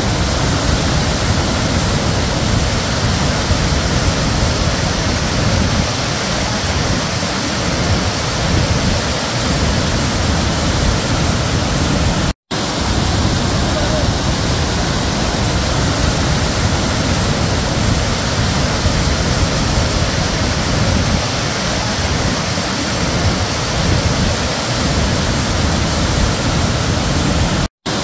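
Nugget Falls, a large waterfall of glacial meltwater, rushing steadily and loudly down rocky tiers. The sound cuts out to silence for an instant twice, about twelve seconds in and just before the end.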